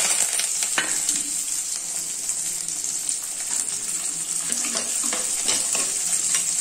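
Chopped onion, garlic and curry leaves frying in hot oil in a clay pot: a steady sizzling hiss with a few sharp clicks. A steel spoon stirs the pot near the end.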